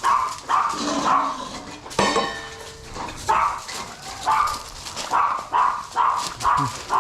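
A dog barking in quick repeated barks, with a sharp knock about two seconds in.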